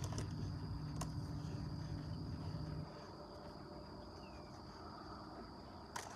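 Baitcasting fishing reel being cranked, a low whirr that stops sharply about three seconds in, over a steady high drone of insects; a short click near the end.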